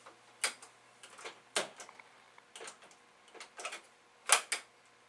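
Irregular sharp clicks and clacks of a floppy disk being pushed into a Commodore 8250 disk drive mechanism while its parts are handled, with a louder double click about four seconds in.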